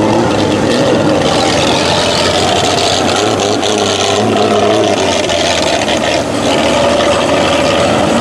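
Jeep Cherokee XJ's engine running steadily under throttle as it drives through shallow mud and water, its tyres splashing and throwing muddy water, loudest in the first half.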